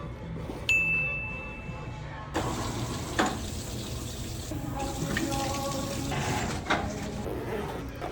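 Water running from a tap into a sink, starting a couple of seconds in with a few clicks over it, after a single short electronic beep near the start.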